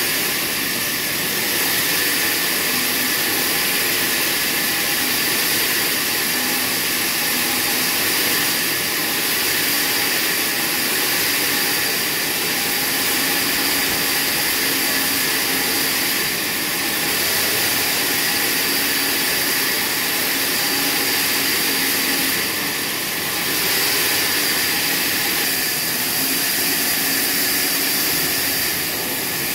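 Horizontal band sawmill cutting through a padauk log: a steady, loud, high-pitched hiss and whine of the band blade and its drive, swelling and easing slightly every few seconds.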